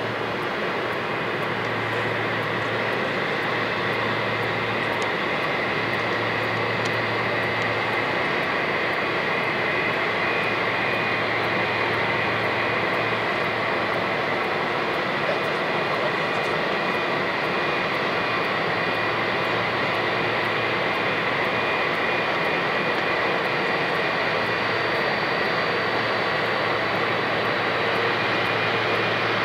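Air Seoul Airbus A321's twin jet engines running at taxi power: a steady jet whine with a high whistling tone, growing slightly louder as the plane comes closer.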